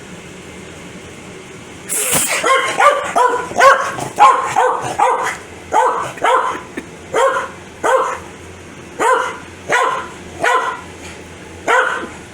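A person sneezes once about two seconds in, and a corgi at once starts barking at it. The barks come in a quick run at first, then slow to about one a second, ending near the end.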